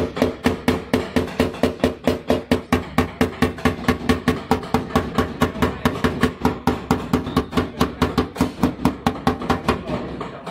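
Rapid, even tapping of a paintless-dent-repair knockdown hammer on a car's sheet-metal fender, about five taps a second. The taps knock down the high spots around the dent while the dent is held pushed up from behind.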